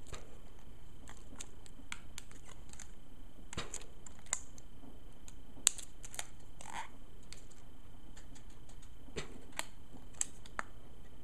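Clear plastic blister packaging handled and pried at by hand: scattered small plastic clicks and light crackles, with one sharper click about halfway through.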